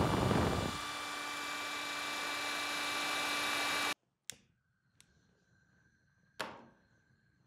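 Electric drill spinning a paddle mixer through blue epoxy resin. It eases from high speed to a lower, steady running speed under a second in, then stops abruptly. Three sharp clicks follow from a lighter held at a butane torch, the last the loudest.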